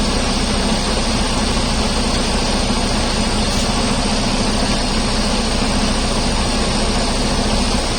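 Heavy diesel truck engine idling with a steady, even drone.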